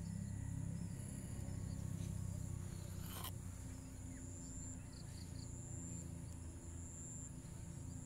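Insects trilling: a steady high buzz, joined from about halfway through by a second high trill that comes and goes in stretches of about a second. Under it runs a low rumble, with one sharp click a little after three seconds.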